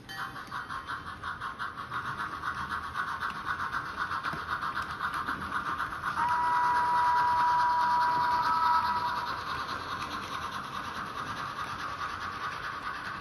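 Model steam locomotive's onboard sound running: a fast, even steam chuffing, with a two-tone steam whistle sounding about six seconds in and held for about three seconds.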